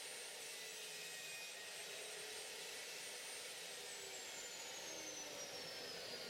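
Faint steady whir of the Mafell KSP85 circular saw mounted upside down under the saw table, with a thin high whine that falls steadily in pitch from about halfway through.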